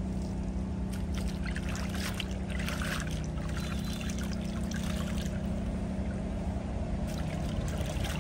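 Water splashing and sloshing in a plastic basin as clothes are dunked and rubbed by hand, loudest in bouts about a second in and near the end. A steady low hum runs underneath.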